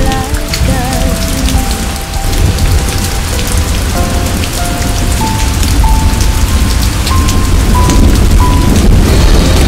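Rain falling steadily, over the quieter notes of a song.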